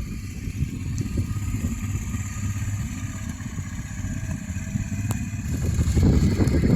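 Honda Transalp XL600V's V-twin engine running at low revs, getting louder about two-thirds of the way through as the throttle opens.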